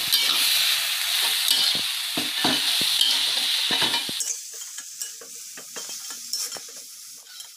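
Water spinach, bean sprouts and noodles sizzling as they are stir-fried in a metal wok, with a metal spatula scraping and knocking against the pan. About four seconds in the sizzle drops away, leaving softer scrapes and taps of the spatula.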